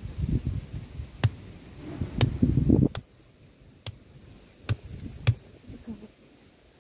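A large, blunt kitchen knife chopping into the hard spiky husk of a frozen durian: about six sharp knocks spread over several seconds. A low rumbling noise lies under the first half and cuts off abruptly about three seconds in.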